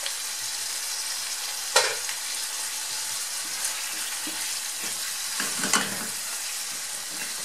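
Sofrito of tomato, vegetables and spices sizzling in a frying pan while a spatula stirs it. There is one sharp knock about two seconds in and a burst of scraping strokes near six seconds.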